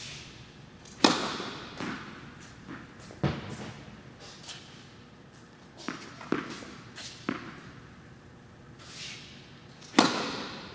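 Tennis serves struck with a racket: a sharp, echoing pock about a second in and again near the end, with fainter ball bounces and taps between, ringing on in the large indoor hall.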